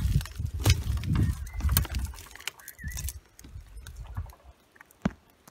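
Gusty low rumble of wind buffeting the microphone, with scattered clicks, dying away after about two and a half seconds. Then faint clicks and a single sharp wooden knock about five seconds in, as a weathered wooden storage box is opened.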